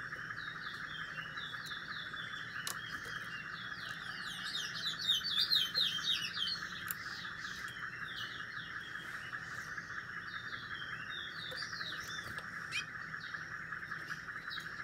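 Small songbird singing in quick, twittering chirps, busiest and loudest in the first half and picking up again for a few seconds later on, over a steady high-pitched hiss.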